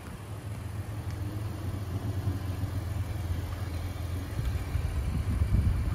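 Nissan Frontier pickup's V6 running steadily at low revs as the truck crawls over a rutted dirt trail, getting a little louder near the end as it comes closer.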